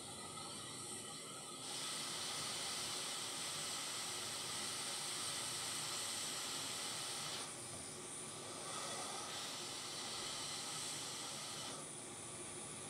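Hot air rework station blowing a steady airflow hiss while reflowing the solder under a chip on a laptop motherboard. The hiss gets louder about two seconds in and drops back briefly twice.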